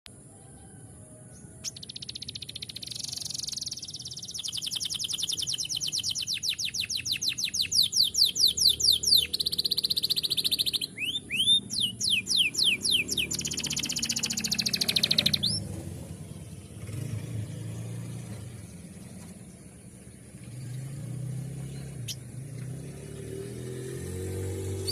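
Domestic canary singing a long song of fast rolling trills and upswept notes, which stops about two thirds of the way in. A low rumble follows to the end.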